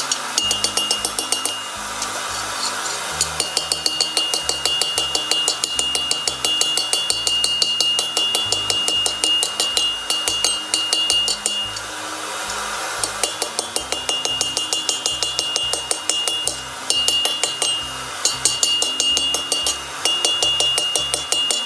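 Hand hammer striking red-hot iron on a steel anvil: rapid blows, several a second, in runs broken by short pauses, with the anvil ringing in a steady high tone.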